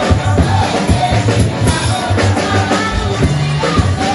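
Live worship music: a congregation singing together over an electronic keyboard with a steady, driving beat and bass.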